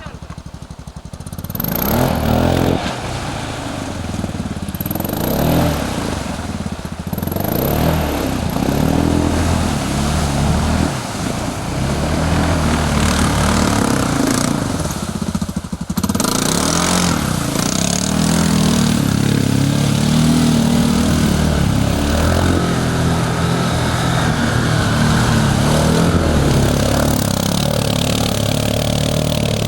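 ATV engine running and revving up and down over and over, its pitch rising and falling as the throttle is worked, getting louder about two seconds in.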